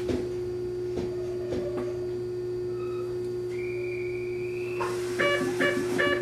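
Steady electrical hum in the cab of an electric train standing at a station. Midway a few short thin tones sound, then a slightly rising tone holds for about a second, and near the end four short, evenly spaced electronic beeps follow.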